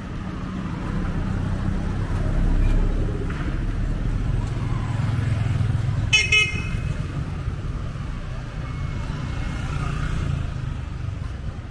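Street traffic: car engines and tyres rumble as vehicles pass close by, and a vehicle horn gives one short honk about halfway through.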